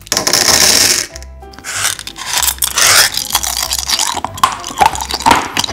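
Small hard candies pouring out of a plastic bag into a plastic case, then close-up crunching and chewing of hard candy in many short crackles. Background music with a steady beat underneath.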